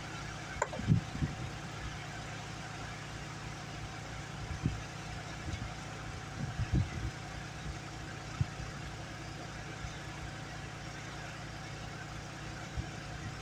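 A motor running steadily with a low hum, with a few short knocks and clunks from handling about a second in and again around the middle.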